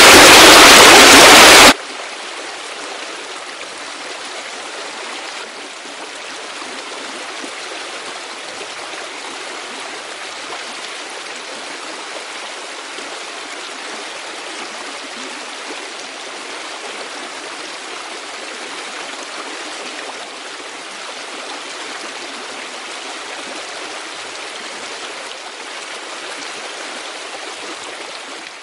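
Loud music cuts off abruptly about two seconds in, leaving a steady, even rushing of running water.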